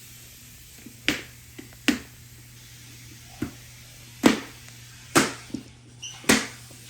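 A series of sharp slaps or knocks, about six, at irregular intervals of roughly a second, each dying away quickly, over a faint steady hum.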